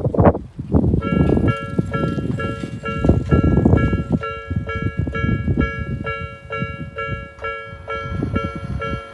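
Japanese railway level crossing's electronic warning bell, the Nikko type, starting about a second in and dinging steadily about two and a half times a second. A loud, uneven low rumble runs underneath, strongest in the first few seconds.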